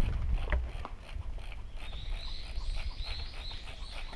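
A low rumble of movement at the camera with two sharp clicks within the first second. From about halfway, a faint high-pitched animal chirping repeats rapidly and steadily.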